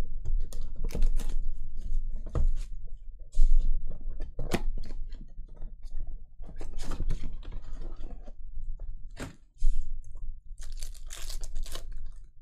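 Cardboard trading-card box being opened and handled, with rustling and crinkling as the foil card packs are tipped out and stacked. Scattered taps and knocks, the loudest a little over three seconds in.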